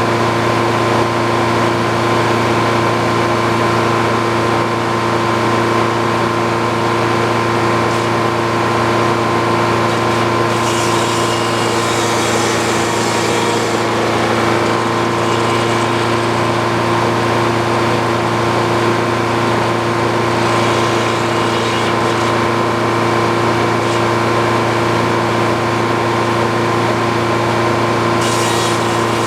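Old Frick circular sawmill running with a steady drone, its blade cutting through wood in several stretches with a rasping hiss over the machine sound.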